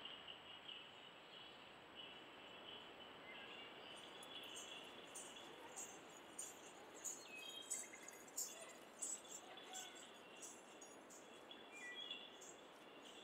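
Faint woodland ambience: a steady high insect trill with scattered high bird chirps and ticks, more of them from about four seconds in.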